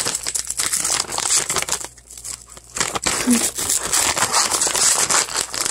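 Loud crinkling and rustling handling noise close to the microphone, with a short lull about two seconds in.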